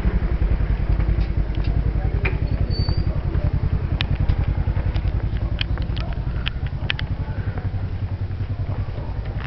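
A motor vehicle engine running close by, a fast steady low throb, with a scattering of sharp clicks from about four seconds in.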